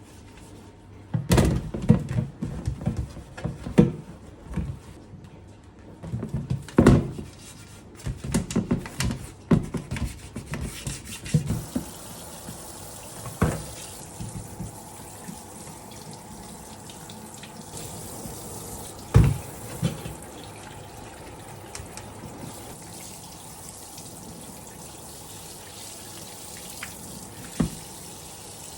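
Washing up at a kitchen sink: dishes and utensils clatter and knock against each other, then tap water runs steadily with a few occasional knocks.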